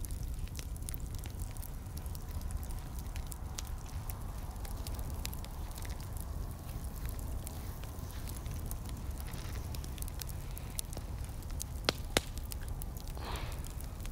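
Fire crackling, with scattered sharp pops over a steady low rumble; two louder pops about twelve seconds in.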